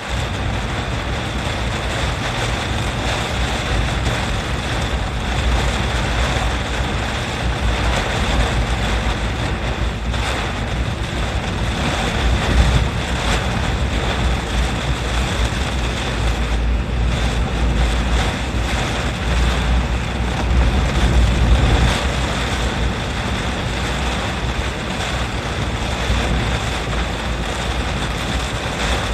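Strong typhoon wind buffeting the microphone, a constant low rumble over a steady rushing roar.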